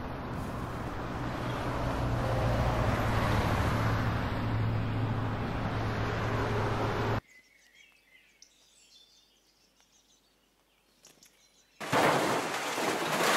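Steady car cabin noise while driving: road and engine noise with a low hum. It cuts off suddenly about seven seconds in to near silence, and a loud rushing noise starts near the end.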